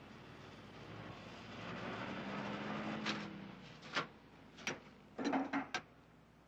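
Gasoline rushing from a pump nozzle into a car's fuel tank, growing louder for a couple of seconds. Then a series of sharp clicks from the nozzle handle: one, then another a second later, then a quick cluster of three or four.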